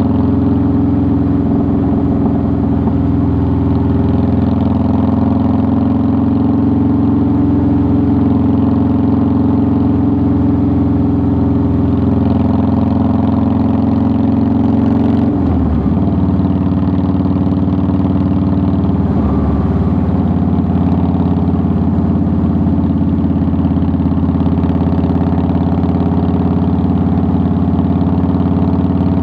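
A 2009 Harley-Davidson Softail Deluxe's air-cooled Twin Cam 96 V-twin engine running steadily under way. Its note breaks briefly twice around the middle and then carries on slightly lower.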